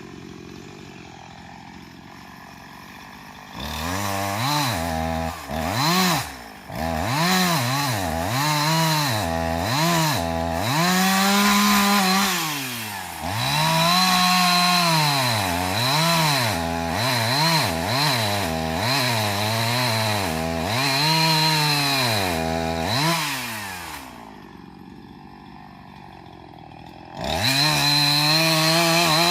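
Chainsaw engine revving up and falling back again and again, starting a few seconds in. It drops to a low level for a few seconds near the end, then revs up again.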